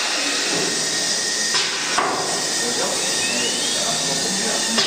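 CNC router workshop machinery running with a steady noise, broken by a few sharp clicks and short hisses and a brief rising whine a little after three seconds in.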